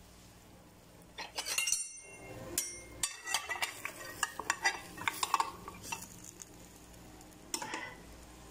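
Kitchenware clinking and scraping against a glass baking dish: a quick run of sharp clinks with short ringing, from about a second in until about six seconds, and another brief clatter near the end, over a faint steady hum.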